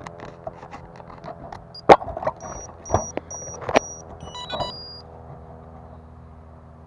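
A small FPV racing quadcopter's motors and propellers humming steadily, heard from the camera riding on the drone. Several sharp knocks cut through between two and four seconds in, the loudest about two seconds in, along with a few short high beeps, and the hum settles quieter after about five seconds.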